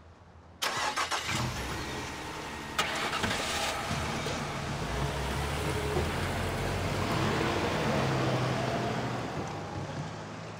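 A sudden thump, then a pickup truck's engine starts and the truck pulls away and drives past. The engine rises in pitch as it speeds up and fades near the end.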